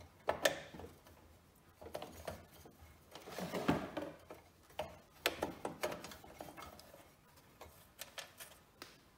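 Screws being worked loose from the metal high-voltage cage of an early-1950s Arvin tube television chassis: scattered small metallic clicks and knocks, with a short scraping rasp a few seconds in.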